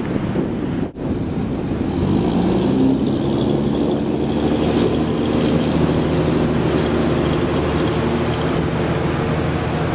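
A motor vehicle engine running close by. Its pitch rises a little about two seconds in, then holds steady over a constant rush of background noise, after a brief dropout about a second in.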